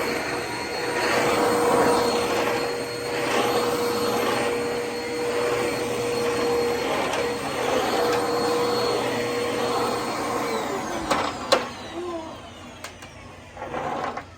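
Eureka Whirlwind Plus vacuum cleaner running with a steady motor whine. About ten seconds in it is switched off and the motor spins down in a falling whine, followed by a few sharp clicks.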